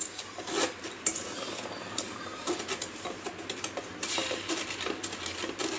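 Wooden spatula stirring undissolved sugar and water in a stainless steel pot: irregular scraping and light knocks of wood against the steel, at the start of making sugar syrup.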